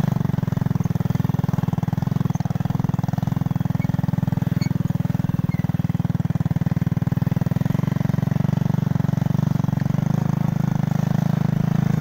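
A small engine running steadily, a low, fast-pulsing drone.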